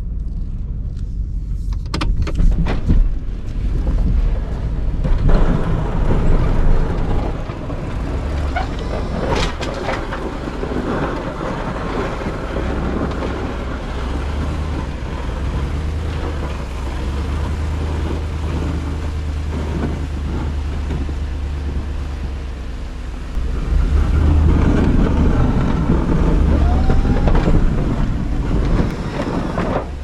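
Ford F-250's 6.2-litre V8 engine running as the truck plows snow, heard from inside the cab, with the plow blade pushing snow. A few sharp knocks come in the first few seconds. The engine grows louder for a few seconds early on and again near the end.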